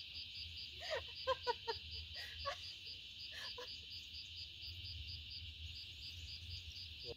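Insects chirping in the surrounding bush: a steady high trill with a regular pulse about four or five times a second. A few short voice sounds from a person come through between about one and four seconds in.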